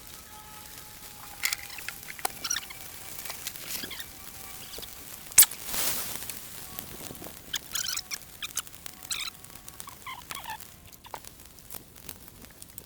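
Camp gear being handled: irregular rustling, scratching and small clicks, with one sharp knock about five seconds in.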